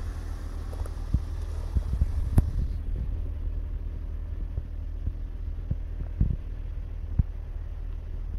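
A steady low rumble with scattered soft knocks and clicks, typical of a hand-held phone's microphone being moved about. One sharper knock comes about two and a half seconds in.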